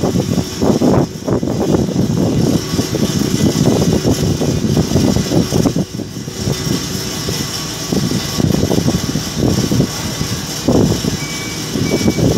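Loud, uneven low rumble of a crawler crane and drilling-rig machinery on a marine piling platform, with gusty swells and dips. Near the end a repeated high electronic beep starts.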